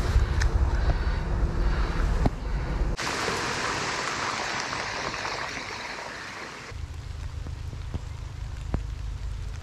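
Steady rain falling on a river's surface, an even hiss heard for a few seconds in the middle. Before and after it, low wind rumble on the microphone, with a few sharp clicks near the start.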